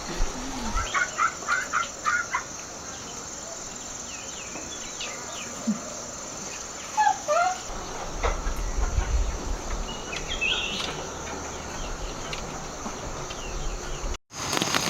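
Chickens clucking: a quick run of clucks about a second in, then scattered single calls, over a steady rural background. The sound drops out abruptly near the end.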